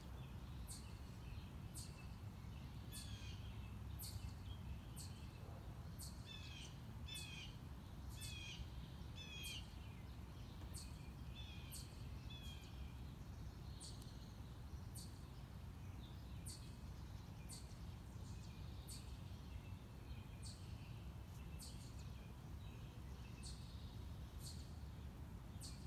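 Songbirds calling outdoors: one bird gives a short, high chirp about once a second throughout, while a second bird sings a series of lower, quavering notes for several seconds in the first half. A low steady rumble of background noise lies underneath.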